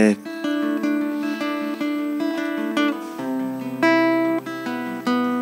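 Acoustic guitar played gently, its chords ringing and changing every second or so, with a lower bass note coming in a little past halfway.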